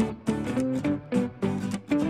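Background music: a strummed guitar playing a steady beat of about three strokes a second.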